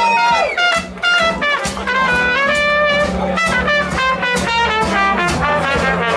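Live blues-rock band playing an instrumental break, with a horn playing a lead line of quick runs and bent notes over the rhythm section.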